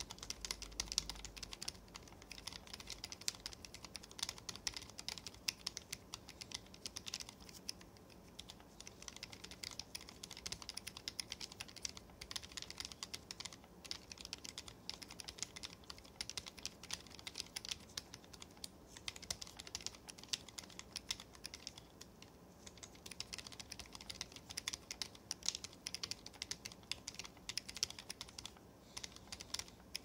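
Fast, continuous typing on a mechanical keyboard with Gateron optical silver linear switches lubed with 205g0 on the stems, under PBT keycaps: a dense stream of keystrokes broken by a few brief pauses.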